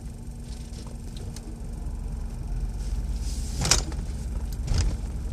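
Low, steady vehicle rumble heard from inside a car's cabin while it waits at the ferry ramp, growing a little louder partway through. Two short bursts of noise, about three and a half and five seconds in, stand out above it.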